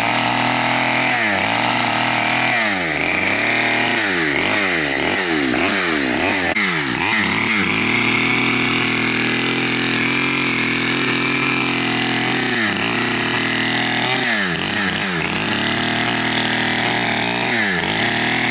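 Small Stihl 009 two-stroke chainsaw cutting lengthwise through a log. Its engine note dips and climbs back again many times as the chain works through the wood, and holds steady at high revs for a few seconds in the middle.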